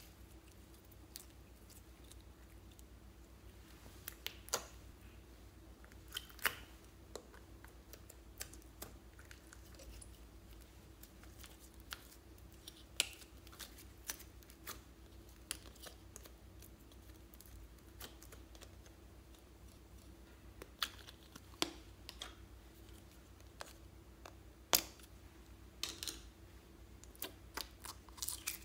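Scattered sharp clicks and taps from small clear plastic slime containers being handled as slime is pulled out of them, with a faint steady hum underneath.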